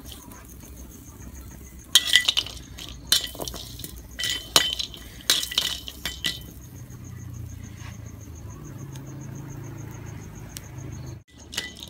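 Metal spatula scraping and clinking against a steel wok as spices are stirred dry in it, in several quick clusters of strokes from about two seconds in to past six seconds, then quieter. A faint high pulsing trill runs underneath.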